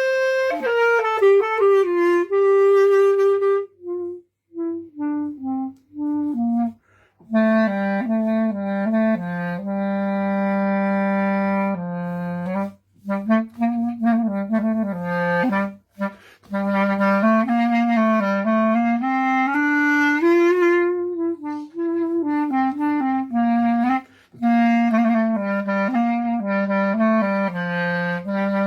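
A solo wind instrument playing a slow melody, with a run of short, separated notes about four seconds in and notes that slide into one another later on. A faint steady low hum sits underneath.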